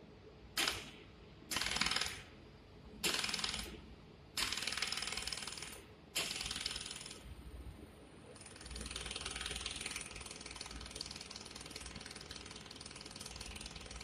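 Mold laser welding machine firing rapid trains of laser pulses, heard as bursts of fast ticking. Five short bursts start and stop suddenly in the first seven seconds, then a longer unbroken run begins about eight seconds in.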